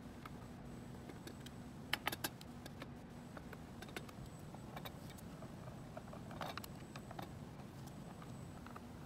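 Size 2 Phillips screwdriver working the screws out of an LED video wall module's back frame: scattered small metallic clicks and ticks, with a quick cluster of three about two seconds in and a short scrape about six and a half seconds in.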